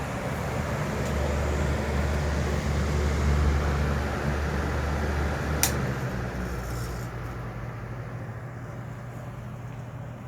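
Mitsubishi EFG-30MSB pressure-type exhaust fan running with a steady rush of air and a low motor hum. A sharp click comes a little past halfway, after which the hum drops and the sound slowly fades as the fan winds down.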